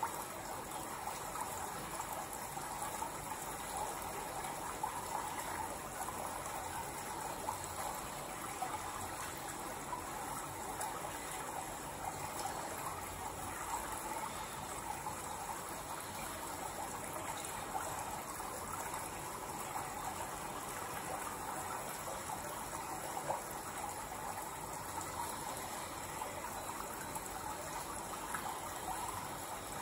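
Running water trickling steadily, an even, unbroken noise.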